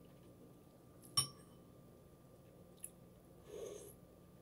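A spoon clinks once against the soup bowl about a second in, with a brief ring, and a faint click follows. Near the end comes a short soft mouth sound as a spoonful of soup is taken.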